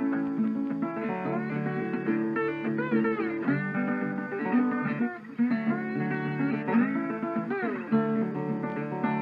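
Background music: an acoustic guitar instrumental with plucked and sliding notes.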